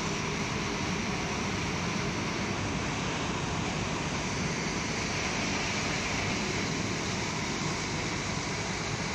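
Fabric spreading machine running on its cutting table: a steady, even mechanical noise with no separate knocks or clicks.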